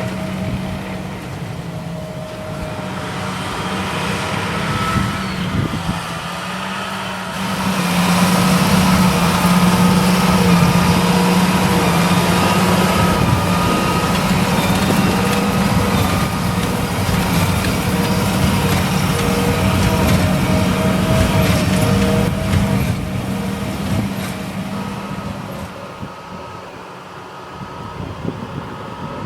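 John Deere 8370R tractor running under load, pulling a Krone Big Pack 1290 HDPII large square baler in work. The steady engine note grows louder about a quarter of the way in as the rig comes close, holds, then fades in the last few seconds as it moves away.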